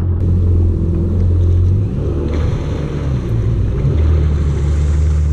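Yamaha WaveRunner engine running at low speed, a steady low hum that wavers and shifts in pitch about two seconds in, then settles steady again.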